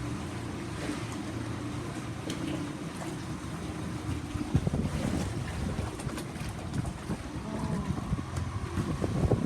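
Boat engine running steadily, with wind buffeting the microphone; from about halfway the sound becomes louder and more uneven.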